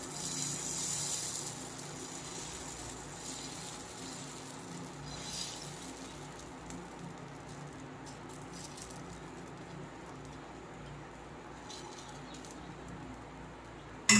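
Thin batter sizzling faintly in a lightly oiled pan over a low gas flame, with a few soft ticks as it is spread, and one sharp knock at the very end.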